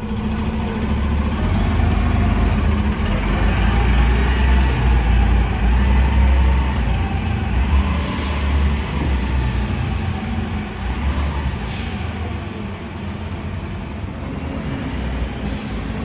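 Cummins Westport C Gas Plus natural-gas engine of a 2006 NABI 40-LFW transit bus running under way, a steady low rumble that builds over the first few seconds and eases off slightly in the second half. A few short sharp sounds come in around the middle and near the end.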